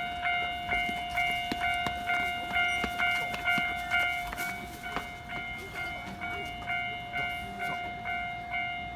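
Japanese railway level-crossing warning bell ringing in a steady rhythm, about two and a half clangs a second, signalling that a train is on its way.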